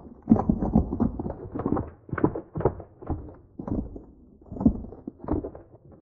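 A speculative sound recreation of the giant sea scorpion Jaekelopterus, built from horseshoe crab, emperor scorpion and Maine lobster sounds. It is a run of irregular low bursts and knocks, about two a second.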